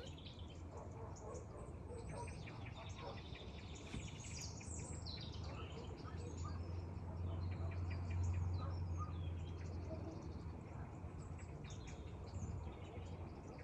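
Faint outdoor ambience of small birds chirping here and there, over a low steady hum that swells a little in the middle.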